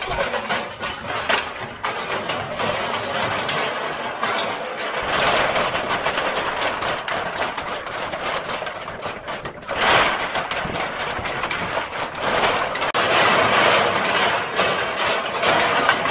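Aluminum cans clattering and rattling as they are poured into a large sheet-metal hopper, a continuous jangle of many small metal impacts, louder about ten seconds in and again near the end.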